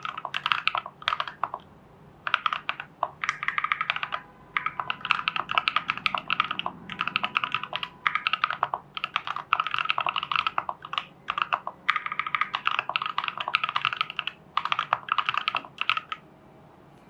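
Typing on a mechanical keyboard with KTT Strawberry linear switches in a foam-dampened, tape-modded TU40 plastic case. The keystrokes come in quick bursts with short pauses between them and stop about a second before the end.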